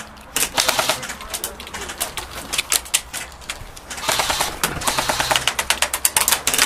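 Airsoft electric guns (AEGs) firing: a short rapid burst of clicks just after the start, scattered single shots, then a longer, dense run of rapid fire from about four seconds in.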